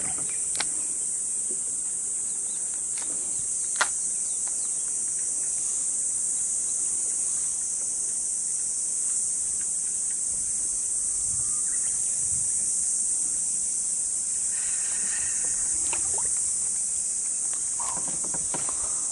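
Steady high-pitched insect chorus droning without a break, with two sharp clicks in the first four seconds; the second, about four seconds in, is the loudest.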